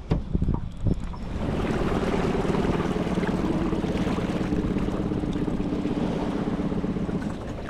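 Outboard motor running steadily as the jon boat travels across the water, with wind noise on the microphone; the motor sound comes up about a second in, after a few knocks.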